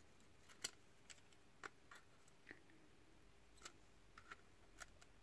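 Faint, scattered clicks and ticks of a screwdriver tip working against a plastic housing and circuit board while an LCD module is prised out. There are about eight irregular clicks, the loudest about half a second in.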